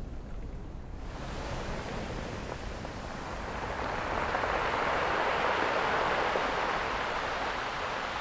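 Rushing sea-wave wash: a low rumble, then about a second in a hissing rush sets in, swells to its loudest midway and slowly eases off, like a wave surging in and drawing back.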